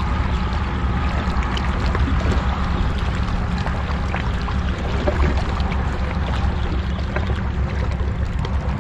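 Steady rush of sea water with a low wind rumble on the microphone and faint scattered clicks.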